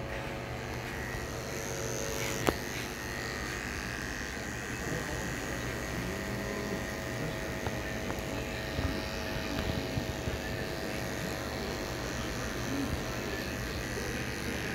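Electric hair clippers buzzing steadily as they cut a skin fade close to the scalp. A single sharp click comes about two and a half seconds in.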